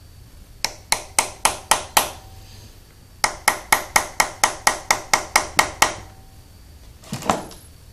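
Hammer lightly tapping a left-handed screw extractor, gripped in vise grips, into the hole drilled in a snapped bolt in an engine block, to make it bite. The taps come in two runs of sharp metallic strikes, about six, a short pause, then about eleven more, at about four a second, with a brief clunk near the end.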